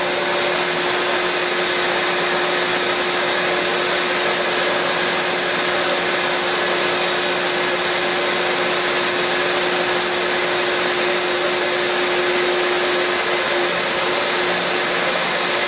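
Loud steady machinery noise on a car ferry's enclosed vehicle deck: a constant hissing rush like large ventilation blowers, with a steady hum underneath that drops away near the end.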